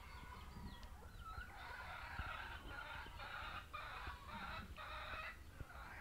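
Backyard chickens clucking faintly in a long run of repeated calls that begins about a second and a half in.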